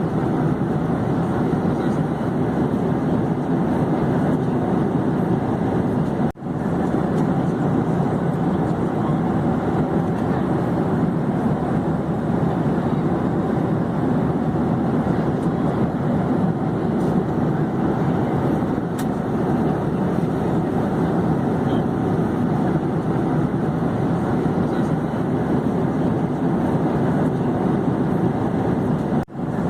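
Airplane in flight: a steady, even rumble of engine and air noise that briefly cuts out twice, about six seconds in and near the end.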